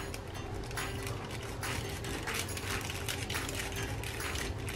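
Kitchen knife sawing through an aluminium-foil-wrapped date and oat roll, the foil crinkling and crackling in short, irregular bursts.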